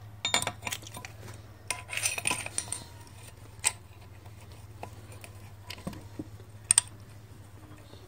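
Sharp metallic clicks and clinks in short clusters, with two sharp clicks close together near the end: a homemade pipe valve spring compressor working on a valve spring retainer in a cylinder head as the valve keepers are freed.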